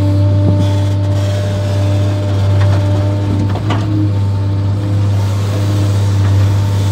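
JCB JS 235 HD tracked excavator's diesel engine running under load with the hydraulics working, heard from inside the cab: a steady low drone with a higher whine that comes and goes, and a few faint knocks as the bucket works the sand.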